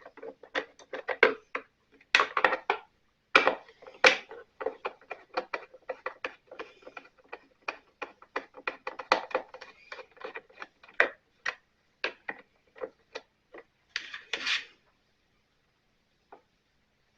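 Hand tools and plastic housing parts clicking, clinking and scraping as the covers of a Stihl BR 600 backpack blower are taken apart, with a long run of quick ticks in the middle and a short scrape near the end.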